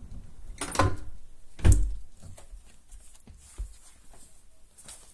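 Two sharp knocks about a second apart, the second a heavier thud, followed by a few faint clicks.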